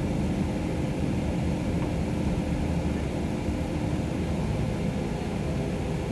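Iveco Crossway bus heard from inside the passenger cabin while driving: a steady low drone of engine and road noise. A faint steady hum rides on it and fades about four seconds in.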